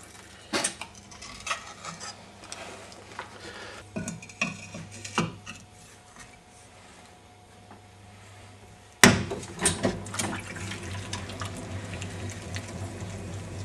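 Scattered knocks and scrapes of hands and tools on a potter's wheel bat. About nine seconds in comes a sharp loud slap, then the electric potter's wheel hums steadily under the wet rubbing of hands centering a lump of clay.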